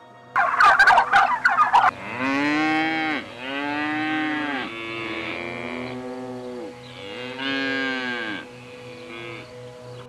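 A turkey gobbles once, a fast rattling call. Then cattle moo, about six long calls that rise and fall in pitch, some overlapping as if from more than one animal.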